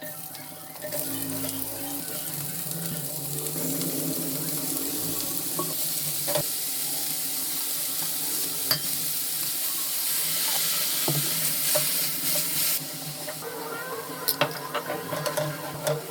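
Food sizzling in hot oil in a pan, with scattered clicks and taps of a utensil against the pan. The sizzle eases about thirteen seconds in, while the tapping becomes busier.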